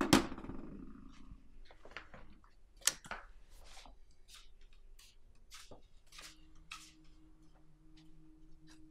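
A knock as a TV remote is set down on a wooden sideboard, then slippered footsteps walking on a wooden hallway floor. About six seconds in, a low steady hum comes in underneath.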